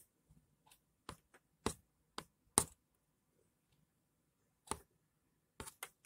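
A string of short, sharp clicks at uneven intervals, about nine in all, the loudest about two and a half seconds in and a quick cluster of three near the end.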